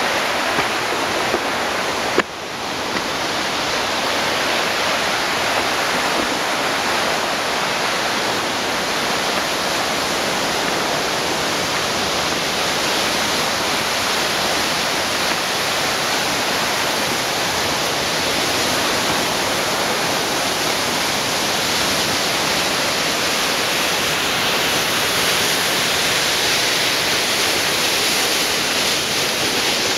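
Steady rush of a waterfall and its cascading creek. A short click with a brief dip in the sound about two seconds in.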